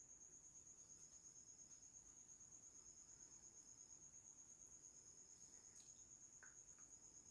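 Near silence: faint room tone with a steady, finely pulsing high-pitched trill.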